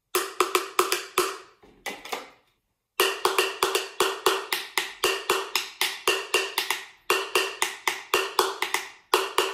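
Pencil tapping a clear plastic food tub held in the hand, played like a tambourim in a quick samba rhythm of several strokes a second. Each tap is a short knock with a clear pitch; a few taps, a brief pause about two and a half seconds in, then a steady run of the pattern.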